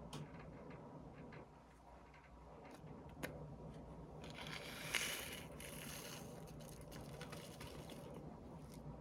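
Faint squishing and scraping of slime being worked by hand, with scattered small pops and clicks. About halfway through comes a louder rustling hiss lasting a second or so, with a sharp pop at its peak.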